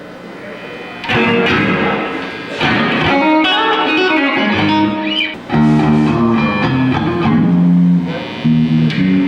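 Electric guitar played during a sound check, coming in loudly about a second in with a run of changing notes.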